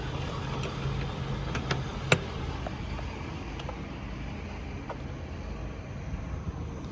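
6.7 Power Stroke diesel engine of a Ford F550 service truck idling steadily, with scattered light clicks and one sharp knock about two seconds in.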